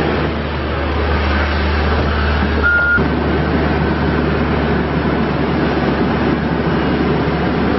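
Case 580N backhoe loader's four-cylinder diesel engine running steadily. A short high tone sounds about three seconds in.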